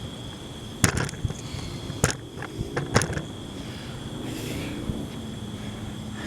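Handling knocks as a camera is picked up and turned around: a few sharp clunks about a second apart, with light rattling between them. Under them runs a steady high-pitched drone of night insects.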